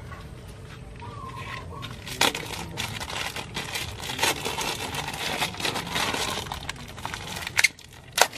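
Crinkling and crackling of a plastic bag of mushroom spawn being worked open by hand, against dry banana leaves, with a few sharper snaps.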